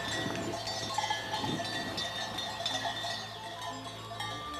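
Many bells on a herd of Rove goats ringing and clanking together as the animals walk.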